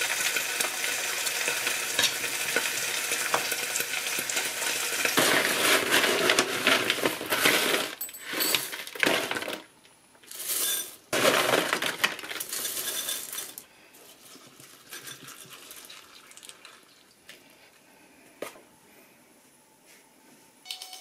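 Kitchen scissors snipping grilled pork belly over a ceramic dish against a steady hiss. Then dry cereal is poured from a scoop into a ceramic bowl, rattling in several loud pours with short gaps. After about fourteen seconds only a few small clicks remain over a low room tone.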